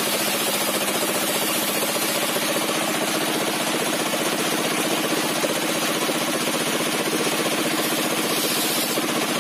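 Engine-driven sawmill with a 60 cm zigzag-toothed circular blade running steadily, with a fast even pulsing engine note, while a squared timber beam is fed through the blade and cut.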